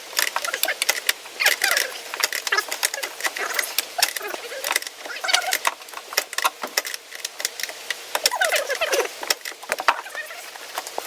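Interior trim being pried and pulled out of a 1999 Jeep Cherokee: a run of clicks, knocks and rattles, with creaking squeaks a few times, the longest near the end.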